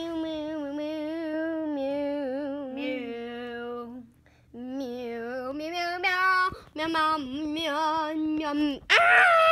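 A child singing a wordless tune in long, wavering held notes, with a short break about four seconds in. Near the end it jumps to a louder, higher, wail-like note.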